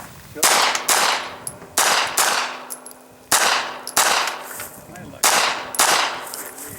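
Pistol-caliber carbine firing about eight shots, loosely in pairs, spread across a few seconds.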